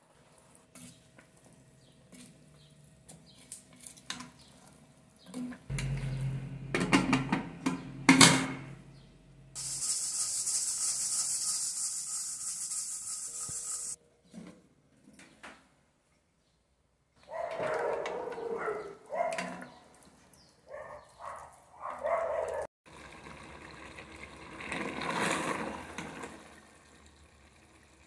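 Spatula scraping beef chunks in an aluminium pressure cooker, then the lid clanking shut. A steady high hiss of steam escaping from the weighted valve for about four seconds, as the cooker comes up to pressure. Later the lid clatters open, and the meat sizzles and simmers as it is stirred on low heat.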